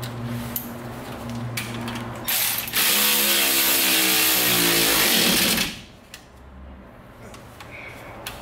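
A handheld power tool runs in one loud burst of about three seconds, starting about two and a half seconds in and stopping suddenly, while a bolt is driven at the rear shock mount. A low steady hum sounds before it.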